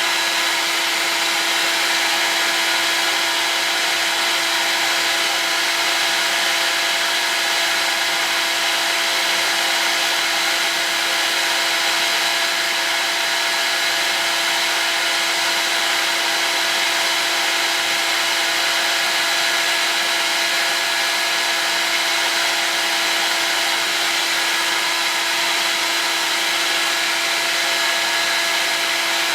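Heat gun running steadily at constant speed, its fan and motor giving an even blowing hiss with a steady hum, heating acrylic tube to soften it for bending.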